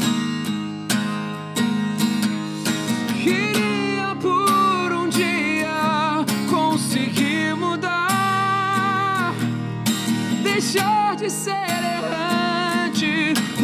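A man singing long, wavering held notes over a strummed steel-string acoustic guitar.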